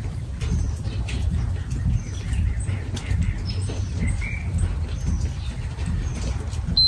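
Small birds chirping in short, scattered calls over a steady low rumble. A short high beep sounds at the very end, where the workout timer runs out.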